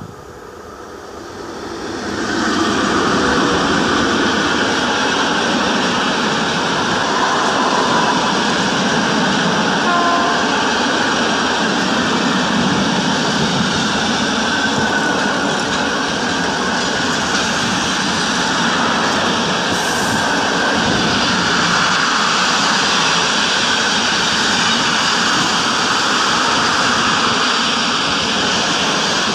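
Freight train hauled by a PKP ET42 electric locomotive passing close at speed: the noise swells as the locomotive arrives about two seconds in, then a long, steady rush of freight wagons rolling over the rails, easing off only at the very end.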